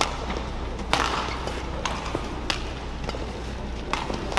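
Badminton rackets striking a shuttlecock back and forth in a rally: five or so sharp, crisp hits about a second apart, over a steady low arena hum.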